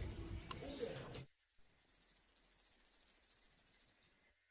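Faint chirps for about a second, then a loud, high-pitched trill pulsing rapidly that starts about one and a half seconds in, lasts about two and a half seconds, and cuts off suddenly.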